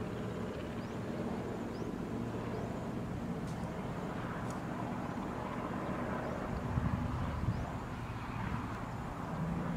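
Steady outdoor rumble with a low hum, with faint short high chirps now and then.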